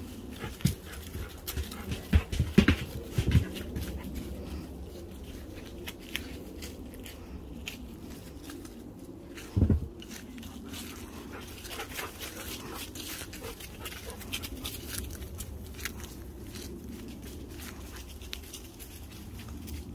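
Dogs playing in a yard: short dog sounds among many small sharp clicks, with a cluster of louder knocks about two to three seconds in and one louder burst near the middle.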